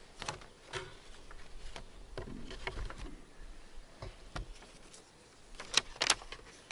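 Loose sheets of paper rustling and crackling as they are leafed through and sorted on a wooden lectern close to the microphone: a scattering of crackles and taps, the two loudest near the end.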